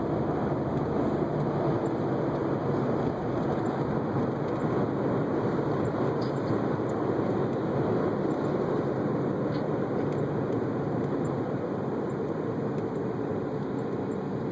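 Steady rumbling noise that does not change, with no clear rhythm of breaths; any snoring is buried under it.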